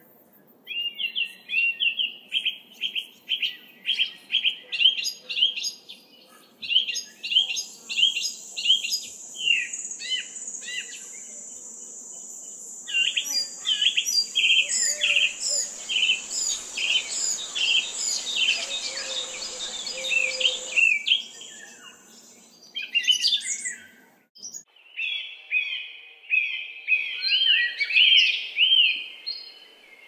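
Songbirds singing: quick runs of repeated chirping notes, several a second, with a steady high-pitched buzz and a soft hiss through the middle. Near the end a run of rising-and-falling chirps takes over.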